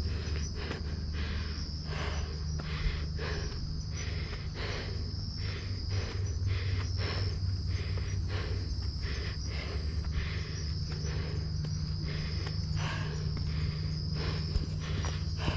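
Footsteps on a dirt forest trail, about two to three a second, over a steady high-pitched chorus of night insects such as crickets, with a low rumble underneath.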